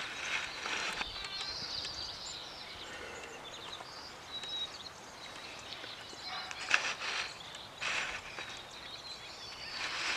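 Small birds chirping throughout, with a few crunching footsteps on gravel near the end.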